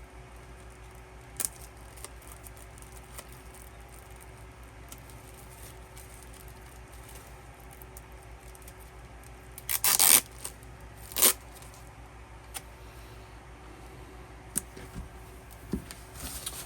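A K-pop album's packaging being handled and opened by hand: faint rustles and light clicks, with two short loud tearing or crinkling sounds about ten and eleven seconds in.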